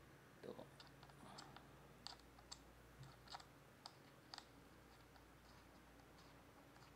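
Faint, light plastic clicks and ticks from a thumbstick being screwed into a DJI Mini 2 remote controller's stick socket, about ten scattered over the first few seconds.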